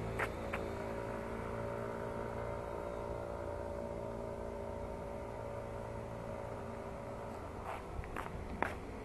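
A steady engine-like hum with a low rumble, holding one pitch and fading slightly; a few sharp clicks just after the start and again near the end.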